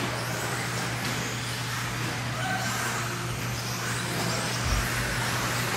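Electric 1/10-scale 4WD modified off-road R/C buggies racing around a dirt track: a steady wash of tyre and drivetrain noise, with faint motor whines rising and falling as the cars accelerate and brake.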